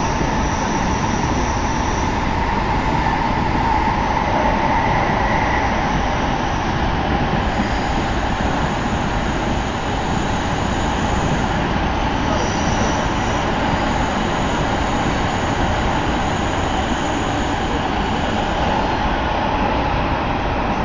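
Tsukuba Express commuter train running underground, heard from inside the car: a steady rumble of wheels and running gear with a steady whine on top.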